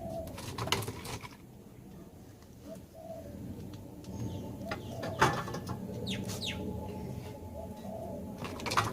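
Sharp metallic clicks and knocks of tools and brake parts being handled, the loudest about five seconds in and just before the end, with a dove cooing softly in the background.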